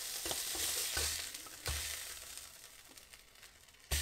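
Beef dripping sizzling in a very hot cast iron skillet just emptied of seared braising steaks, the sizzle dying away over a few seconds. A couple of dull knocks sound about a second in, as the steaks are put into the slow cooker.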